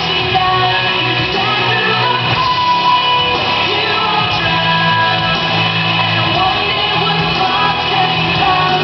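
Recorded pop-rock song playing steadily, a singer's voice over guitar.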